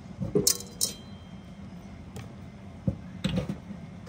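Opened mangrove clam (lokan) shells clicking and knocking as the meat is taken out of them. A cluster of sharp clinks about half a second in, one ringing briefly, and a few more knocks about three seconds in.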